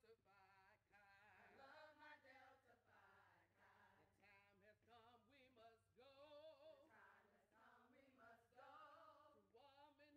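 Faint group singing, several voices holding long, wavering notes.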